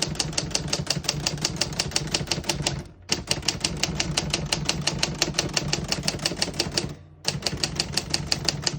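1961 Underwood Olivetti Studio 44 manual portable typewriter being typed on fast and evenly, about eight or nine key strikes a second, printing from the black half of the ribbon. The typing stops briefly twice, about three seconds in and about seven seconds in.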